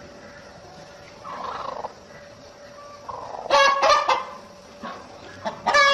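Domestic fowl calling: two loud bouts of rapid, pulsing calls, the first a little past halfway and the second near the end, with a faint steady hum underneath.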